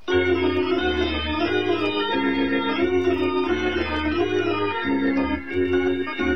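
Background music: held chords over a low bass line, with the notes changing every half second or so.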